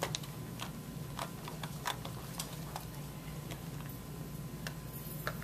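Irregular light clicks and taps, about a dozen spread unevenly, over a steady low hum.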